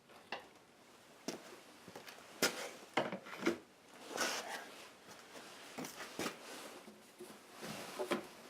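Objects being handled and set down by hand: a string of irregular knocks and clicks with rubbing and scraping between them.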